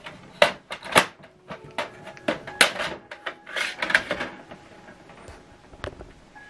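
HP DeskJet 2724 inkjet printer's plastic mechanism clicking and clunking several times, with a brief whir in the middle, as the printer settles its newly fitted ink cartridges after the cartridge access door is closed.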